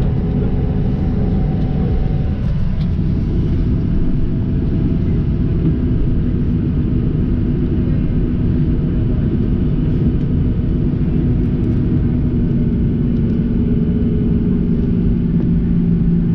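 Cabin noise of a Boeing 737-800 taxiing after landing: a steady low rumble with the hum of its CFM56-7B engines at idle, the hum growing a little stronger near the end.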